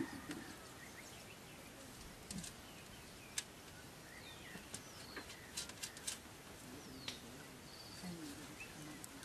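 Faint outdoor ambience with a few scattered bird chirps and several short, light clicks.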